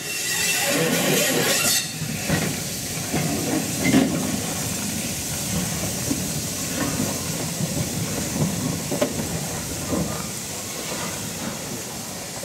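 Dubs crane tank steam locomotive No. 4101 moving slowly along the track. Steam hisses loudly for about the first two seconds, then a steadier hiss continues over a low rumble, with scattered clanks and clicks from the wheels and motion, the sharpest about four seconds in.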